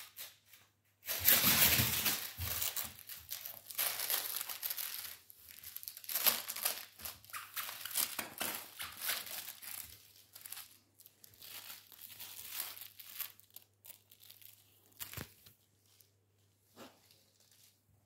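Crinkle-filled plush squirrel toy crackling and rustling as a husky chews and shakes it in its mouth. The crinkling comes in irregular bursts, loudest from about a second in, and thins to occasional crackles over the last few seconds.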